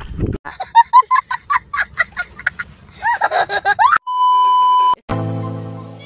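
Short, clipped voice-like sounds, then a steady electronic beep lasting about a second. Background music with sustained notes follows.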